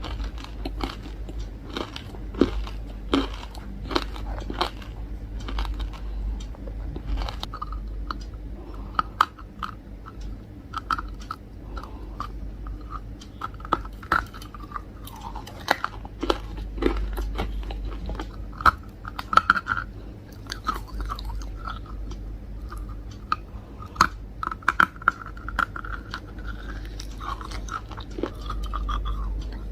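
A person biting into and chewing hard, crunchy chunks: a steady run of sharp cracks and crunches.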